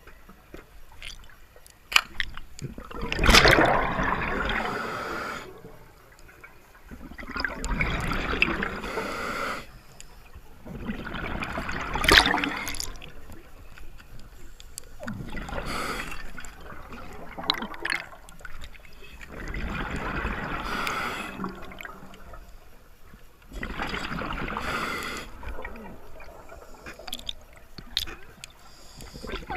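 Scuba diver breathing through a regulator underwater: a hiss on each inhale and a rush of bubbling exhaust on each exhale, the breaths recurring every few seconds, with faint scattered clicks in between.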